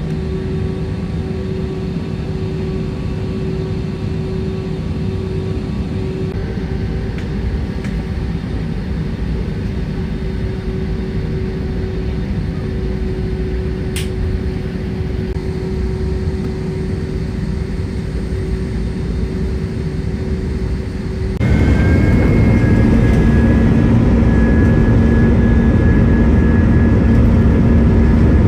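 Passenger jet cabin noise: the steady rush and hum of the engines and airflow. About 21 seconds in it gets suddenly louder, with a deeper hum and a high whine added.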